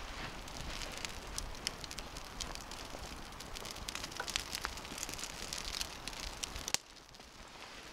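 Campfire crackling: a steady hiss scattered with many small sharp pops, turning suddenly quieter near the end.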